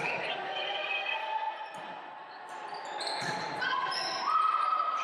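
Indoor volleyball rally on a hardwood gym floor: sneakers squeaking, players calling out, and the ball struck now and then.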